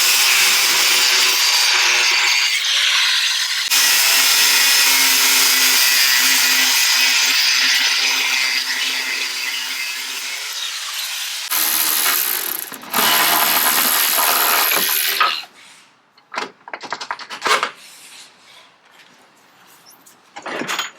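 Angle grinder cutting through the seized, rounded-off heads of the door hinge bolts, a loud steady grinding whine in two long runs. After about fifteen seconds it stops, followed by light metal knocks and clatter.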